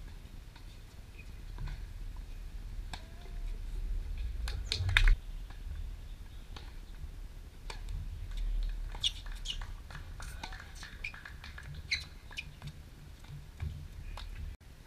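Outdoor court ambience: birds chirping and squawking on and off, over a low wind rumble on the microphone. A sharp knock about five seconds in is the loudest sound.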